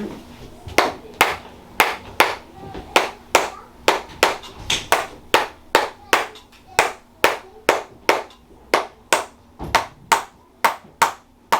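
Rhythmic percussive hand slaps on a patient's body, a chiropractor's tapping massage, about two to three sharp slaps a second starting about a second in.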